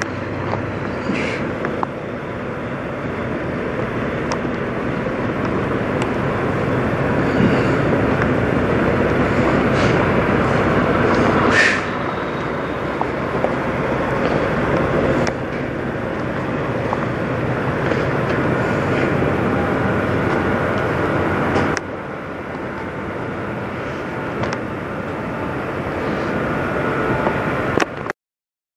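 Freightliner Classic semi truck's diesel engine running as the truck manoeuvres slowly through the lot, the engine noise dropping abruptly three times along the way.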